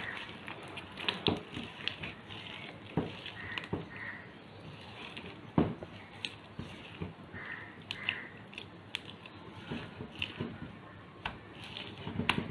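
Hands squishing and slapping a thick urad dal flour batter in a stainless steel bowl: irregular wet smacks and knocks as the batter is beaten and pressed against the bowl, the loudest one about five and a half seconds in.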